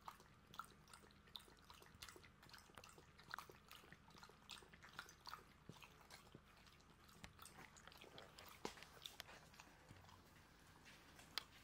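A small dog lapping water from a bowl: faint, irregular wet clicks, several a second, thinning out near the end as it stops drinking.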